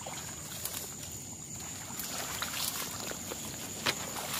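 Tall reeds and grass rustling and crackling as someone pushes through them, with a few sharper snaps. A steady high-pitched insect trill runs underneath.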